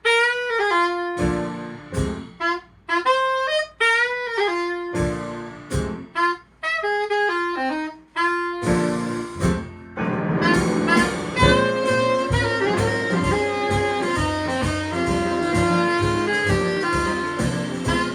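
Saxophone playing jazz with a band. For the first half the sax plays short phrases broken by pauses and short band hits; about ten seconds in, the full band comes in with a steady beat under the sax.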